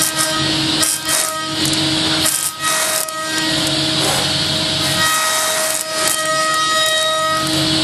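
High-speed milling of aluminium with an Iscar cutter: a steady cutting whine over a dense hiss, the tone shifting in pitch several times as the cut changes.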